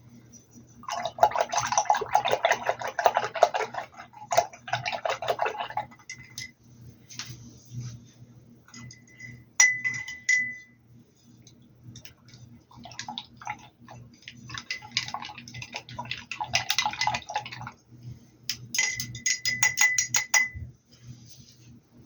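A paintbrush swished and tapped in a glass jar of rinse water: three bursts of rapid clinking and rattling, with a single ringing clink of the glass about ten seconds in and another ring during the last burst.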